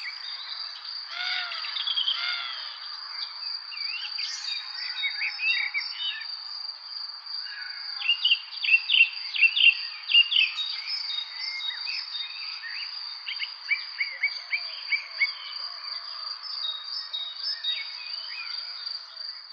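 Evening spring birdsong: several birds chirping and whistling in quick, overlapping phrases, busiest and loudest about halfway through. A steady high-pitched insect trill runs underneath.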